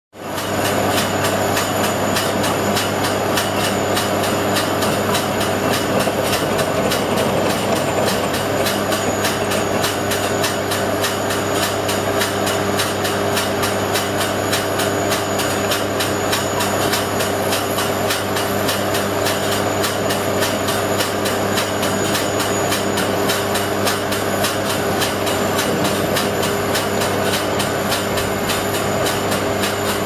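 Truck-mounted water well drilling rig running steadily while it drills: an even machine drone with a low hum and a thin high whine.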